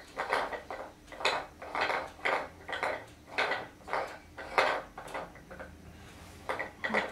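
Coloured rings of a wooden stacking toy clacking against its wooden pegs and base, a run of quick knocks about two or three a second, with a short pause before a few more near the end.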